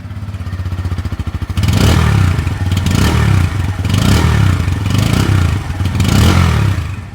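2024 Bajaj Pulsar N160's single-cylinder engine idling through its underbelly exhaust, then revved hard about five times in quick succession from about a second and a half in, dropping back toward idle near the end.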